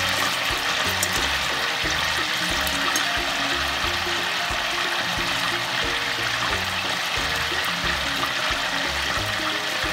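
Chicken pieces frying in hot oil in a pan: a steady sizzle with a few small pops. Background music with low, held notes that change every second or so plays alongside.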